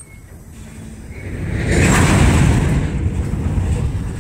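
Road vehicle passing close by: a low rumble with tyre hiss that swells from about a second in, peaks near two seconds, then fades away.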